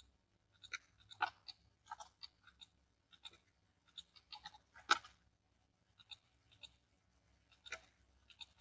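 Faint, irregular clicks of a computer mouse and keyboard while drafting, a dozen or more scattered through, the loudest about a second in and near five seconds in.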